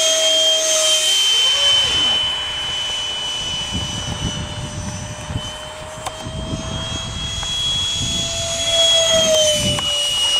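RC model aeroplane's motor and propeller giving a steady high whine as it flies. The whine grows louder and then drops in pitch near the end as the plane passes.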